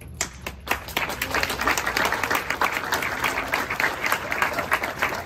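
Audience applauding: a few single claps at first, quickly building into steady applause.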